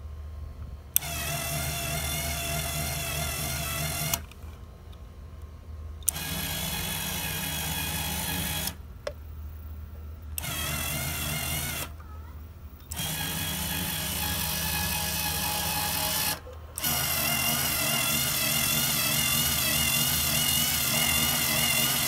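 Black & Decker cordless screwdriver's motor and gearbox whirring as it turns the sun-shade roller, switched on and off five times with a sharp relay click at some starts. Each run is a steady whine that wavers slightly in pitch.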